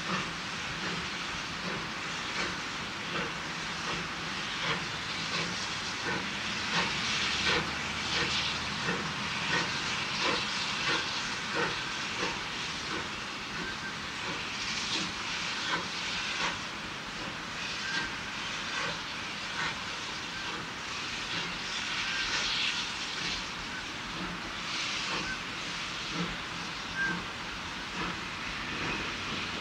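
Baldwin 2-6-2 steam locomotive No. 12 working a train, its exhaust coming as a series of chuffs over a steady hiss of steam.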